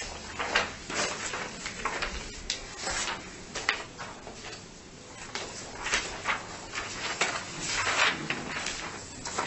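Paper rustling and pages being turned and shuffled on tables, with small irregular handling knocks.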